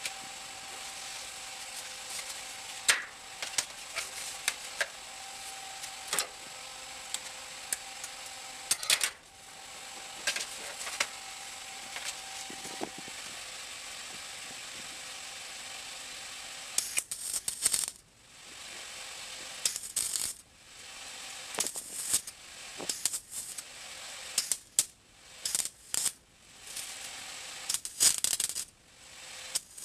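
Welder tack-welding a thin sheet-metal patch plate into a truck dash, making a sizzling crackle. It starts as a steady hum with scattered crackles, then from about halfway through comes as a string of short crackling bursts with brief pauses between the tacks.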